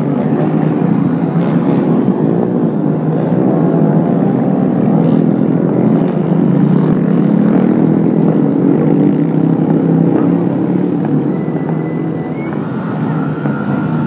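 Steady, loud din of many motorbike and scooter engines running along the street as traffic streams past close by.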